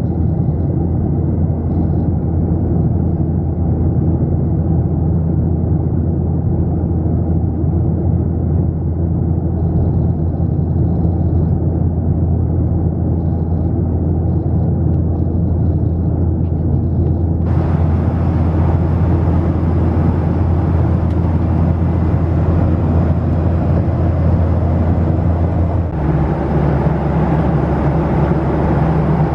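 Boeing 737-700 cabin noise in flight: a loud, steady, low drone from the CFM56-7B engines and rushing air. About two-thirds of the way through, a hiss suddenly joins it, and near the end the low drone's tone steps to a new pitch.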